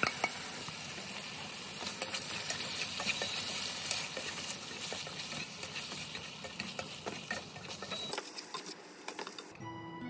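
Chicken pieces sizzling in a nonstick frying pan as sauce is added and they are tossed with tongs to coat, with irregular clicks of the tongs against the pan. The sizzle drops away near the end.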